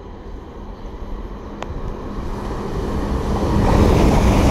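Chiltern Railways diesel multiple-unit train approaching and coming alongside the platform, growing steadily louder. A steady low engine hum sits under the rising rush of its wheels on the rails.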